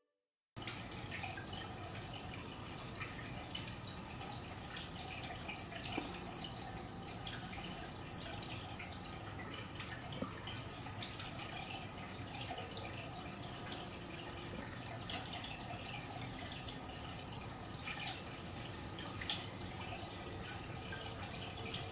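Aquarium water trickling and dripping, a steady splashy wash dotted with small drips and bubble pops, starting about half a second in.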